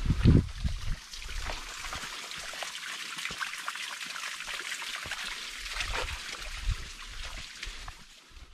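Water trickling steadily, a fine crackling hiss that fades near the end, with a few low footstep thumps on the muddy track in the first second.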